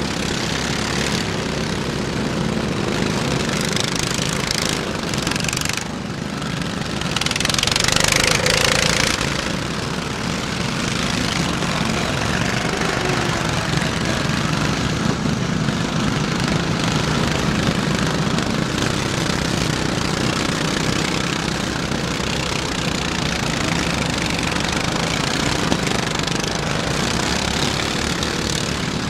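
Engines of several riding lawn mowers running at once, revving as the mowers push against each other, with a louder burst of engine noise about a quarter of the way in.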